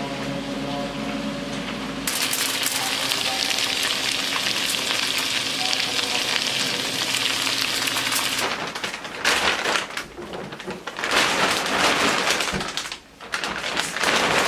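Pork chops frying in a hot pan: a low hum gives way about two seconds in to a loud, steady sizzle. Past the middle the sizzle breaks into uneven bursts with short gaps, with aluminium foil crinkled over the pan.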